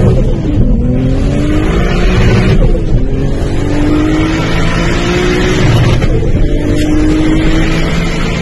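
Tuned Toyota Supra's straight-six engine, heard from inside the cabin, accelerating hard through the gears. The engine note climbs, drops at an upshift about three seconds in and again about six seconds in, then climbs again.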